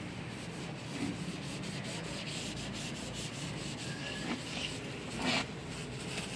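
Soapy wash mitt rubbing and scrubbing over a car's painted body and front grille, a steady scrubbing sound with one short louder scrape near the end.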